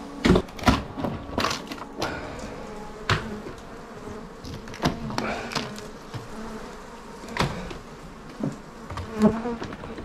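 A knife cutting and scraping old, dry black honeycomb that is nearly all cocoon out of a roof cavity, in irregular sharp scrapes and knocks, over a steady buzzing of honey bees.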